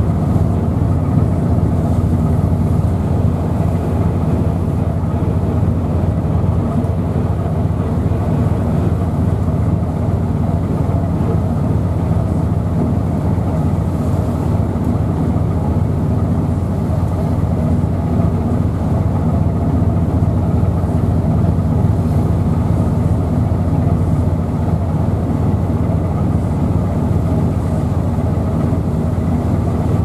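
Strong gale-force wind buffeting the microphone: a loud, steady low rumble.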